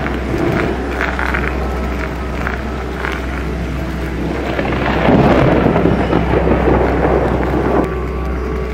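Thunder-like rumbling noise over a steady low drone, part of an experimental electronic film soundtrack, with scattered faint crackles. The rumble swells about five seconds in and drops back a little before the end.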